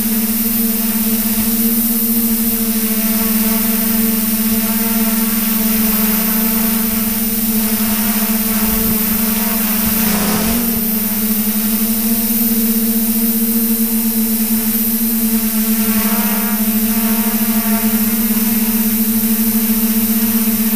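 Steady hum of a multirotor's electric motors and propellers, heard from its own onboard camera. About ten seconds in the pitch briefly wavers as the craft manoeuvres.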